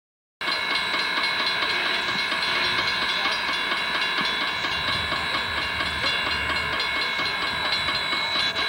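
Southern Pacific 786 steam locomotive: a steady hiss of steam with rail noise and a few steady high tones, starting abruptly just under half a second in.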